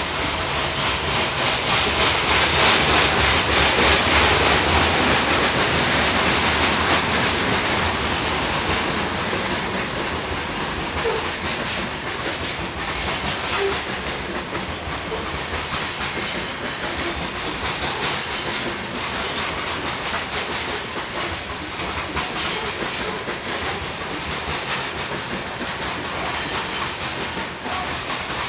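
Freight train cars rolling past, wheels clacking over the rail joints with a steady rumble and hiss. Loudest a few seconds in, then easing off slowly.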